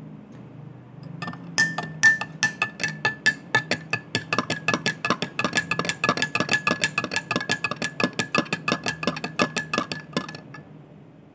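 A spoon stirring coffee in a cup, clinking against the side about five times a second, with the cup ringing on a steady tone under the strikes. It starts about a second in and stops near the end.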